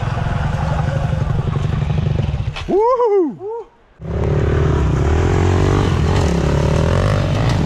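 Petrol enduro motorcycle engines running on the trail. About three seconds in, the engine sound is broken by a short wavering up-and-down pitched sound and a brief drop-out before it resumes.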